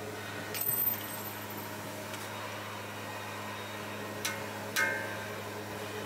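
A steady low hum with a few light clinks, the last one, about five seconds in, ringing briefly.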